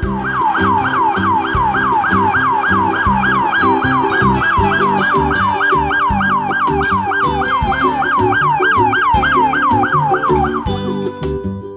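Police car siren in a fast yelp, its pitch sweeping up and down about three times a second, over a backing music track; the siren stops near the end.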